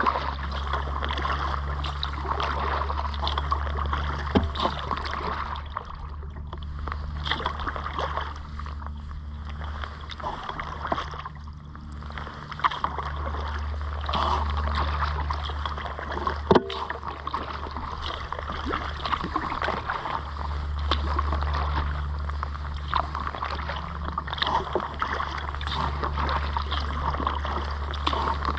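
Kayak paddling: the paddle dips and splashes, and water drips and trickles off the blades in small splashes, under a low rumble that comes and goes.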